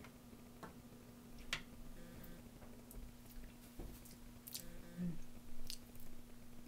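A few faint clicks of a wooden spoon handled at a blender jar of thick sauce, then soft lip and mouth sounds of tasting the sauce off the spoon. A faint steady hum runs underneath.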